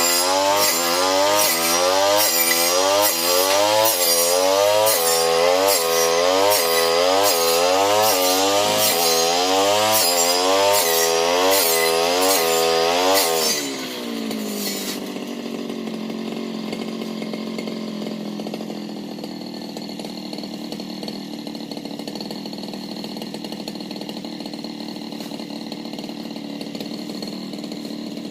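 Brush cutter engine revving up and down in even pulses, about one and a half a second, as it cuts patchouli stems. About halfway through the throttle is let go, and the engine drops to a steady, quieter idle.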